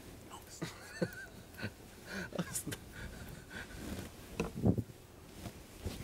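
Satin comforter and bedding rustling as two people shift and tussle in bed, with scattered soft clicks and taps. A faint wavering high tone runs through the first half, and a short loud low sound comes about four and a half seconds in.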